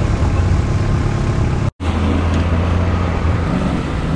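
Off-road 4x4 engines running steadily at low revs under load as the vehicles crawl through deep mud ruts. The sound drops out completely for a moment about halfway in, then carries on.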